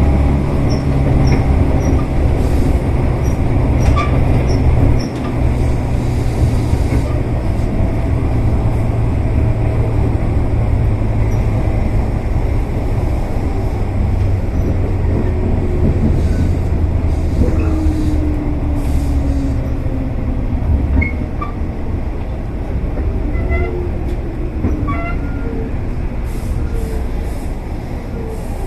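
Tobu 8000-series electric train running along the line: a steady low rumble and hum from the motors and wheels, with light clicks from the rails. In the second half several tones slide down in pitch and the noise eases, as the train slows.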